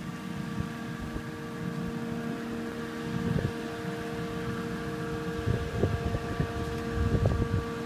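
A steady machine hum holding several fixed tones, over a faint even hiss of rain and running water. Low rumbles of wind on the microphone come about three seconds in and again through the last few seconds.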